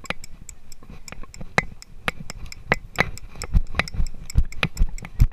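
Rapid, irregular clicking and knocking, about three to five clicks a second, with dull thumps under them, from the rattle of a rider-mounted GoPro and the horse's tack as a paint horse is ridden.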